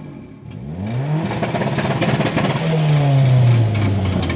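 Turbocharged Ford Focus 2.0 Zetec engine revving hard: the pitch climbs steeply over about a second and runs rough and choppy near the rev limiter, then the revs fall away in the second half.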